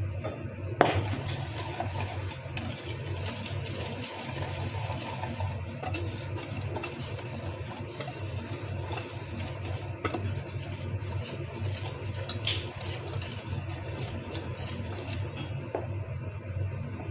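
Wire balloon whisk scraping and clinking round a stainless steel mixing bowl as flour is whisked into the batter. It starts with a sharp knock about a second in and stops shortly before the end, over a steady low hum.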